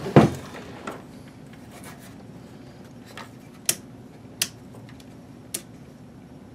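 A dull knock at the start, then three short sharp clicks a second or so apart, from hands working the fittings on a metal amplifier rear panel (switches and fuse holder), over a faint steady hum.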